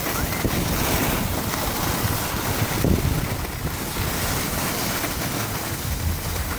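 Steady rushing noise of skiing downhill: wind over the microphone mixed with skis sliding over groomed snow.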